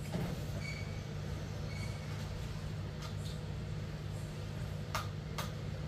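Steady low electrical hum with faint hiss, from the repair bench equipment. Two faint clicks about five seconds in.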